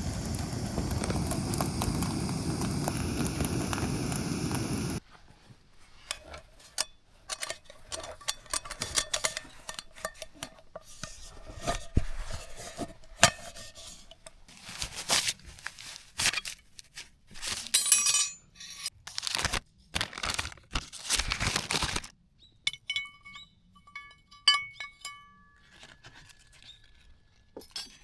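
Steady rushing noise that cuts off suddenly about five seconds in, then scattered clinks, taps and crinkling of camp cooking gear and packaging being handled, with a run of short metallic pings near the end.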